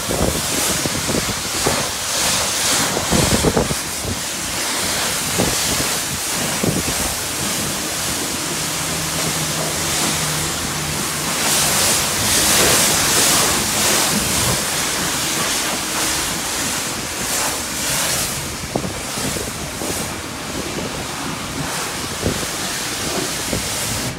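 High-pressure car-wash wand spraying wax solution onto a car's glass and body panels. The spray rushes steadily, swelling and easing as the jet sweeps across, and is loudest around the middle.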